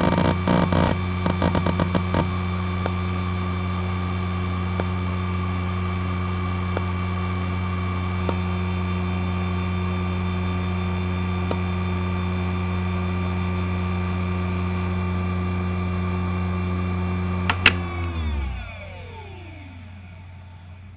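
ExcelStor CT210 10.2GB 5400 rpm 3.5-inch IDE hard drive running under a benchmark. It opens with a quick flurry of head-seek clicks, then gives a steady spindle hum with occasional faint ticks during a linear read. Near the end two sharp clicks as the heads park, then the spin-down: the whine slides down in pitch and fades.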